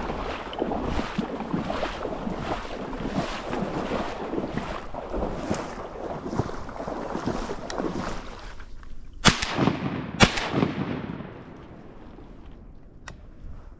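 Rhythmic footsteps with wind noise on the microphone, then two shotgun shots about a second apart, the loudest sounds, after which it goes quieter.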